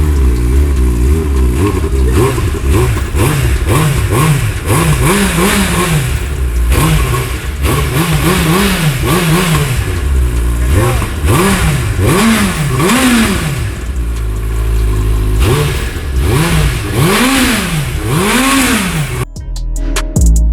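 Suzuki Hayabusa's 1340 cc inline-four on its stock exhaust, idling and blipped again and again, the revs rising and falling each time. About 19 seconds in it cuts off suddenly to music.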